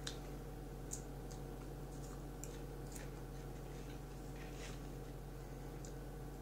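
Faint scattered clicks and light crunches from handling a plastic seasoning-jar lid and popcorn, and chewing, over a steady low hum.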